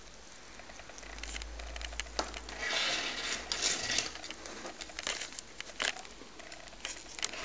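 Rabbits chewing and pulling at Welsh meadow hay: quick, irregular crunching and crackling of dry hay stalks, with a louder stretch of rustling hay about three seconds in.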